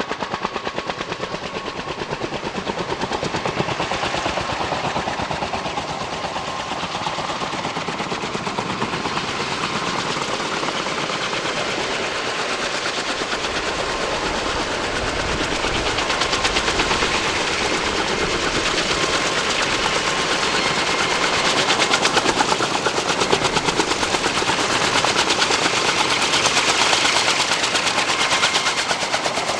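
Kaman K-MAX helicopter's intermeshing twin rotors beating in a fast, continuous chop, with a steady whine underneath; the chop swells louder about halfway through.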